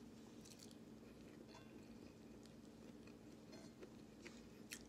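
Faint chewing and mouth sounds with a few soft, scattered clicks, barely above near-silent room tone.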